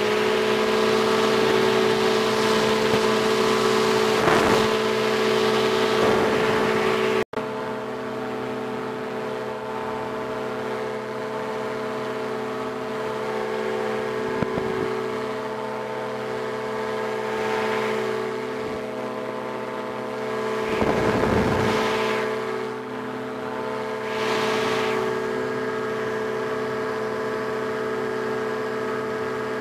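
Aerochute powered parachute's engine and propeller droning steadily in flight, at one even pitch. It drops out briefly about seven seconds in and comes back a little quieter, and wind buffets the microphone now and then, most strongly a little past the two-thirds mark.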